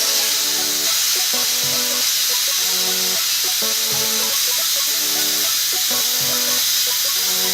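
Can of compressed air spraying in one long, steady hiss, spinning a metal fidget spinner up to speed. Background music with a repeating melody plays underneath.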